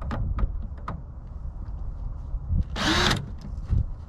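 Wind buffeting the microphone as a steady low rumble, with scattered small clicks and knocks from handling the TV's plastic and metal parts, and one short, loud hissing burst about three seconds in.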